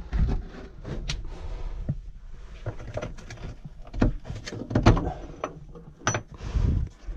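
A stiff old wooden drawer-front or panel being tugged open by its rusty iron handle: a series of sharp wooden knocks and rattles over dragging, scraping wood, the loudest knocks coming about four and five seconds in.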